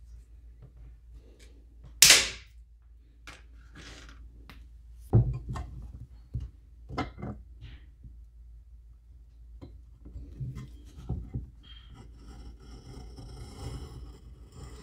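Wire cutters snipping a stainless steel twist-wire shaft to length with one sharp, loud snap about two seconds in, followed by a few lighter knocks and clicks. Near the end, a tool scrapes along a wooden board.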